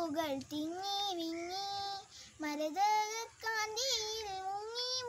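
A child singing solo, holding long notes that bend and waver in pitch, in phrases broken by short pauses for breath, with no accompaniment.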